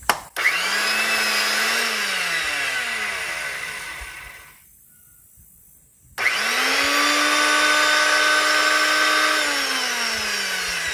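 Bladeless corded circular saw motor run twice. It whines up, coasts down with falling pitch over about two seconds, then after a short pause spins up again, runs steady for about three seconds and winds down. The motor still turns freely.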